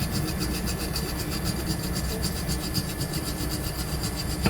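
Tire repair stitcher, a small toothed roller, being rolled over a patch on the inside of a tire to press it onto the glued rubber, giving a fast, even run of clicks.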